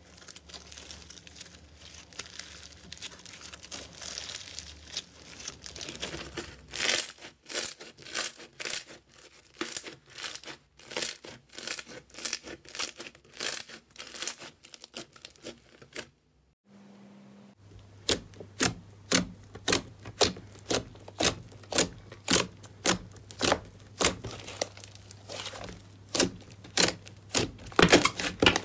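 Hands working slime: fluffy cloud slime crackling as it is stretched and torn, then foam-bead slime giving irregular crunchy clicks as it is kneaded. After a short break, a glossy slime is pressed flat with a fast, regular run of sharp pops, about two a second, as air pockets burst.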